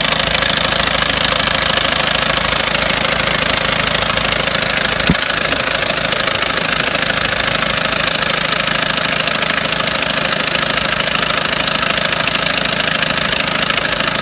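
2.0 TDI common-rail diesel engine of a 2010 VW Golf idling, with a popping, clacking noise from the gearbox side and one sharper knock about five seconds in. The owner puts the noise down to a failing throwout bearing, dual-mass flywheel or clutch.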